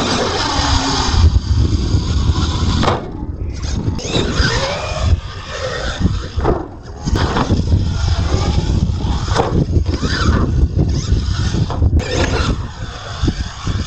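Radio-controlled monster truck's electric motor whining, its pitch rising and falling again and again as the throttle is worked through jumps and landings on the dirt ramps.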